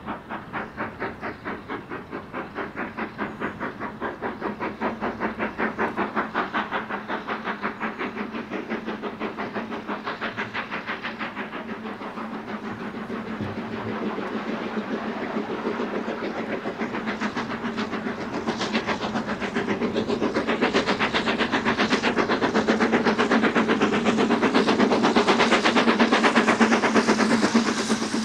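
BR Standard Class 9F 2-10-0 steam locomotive working hard with a train of coaches. Its two-cylinder exhaust beats come fast and even, growing louder as it approaches.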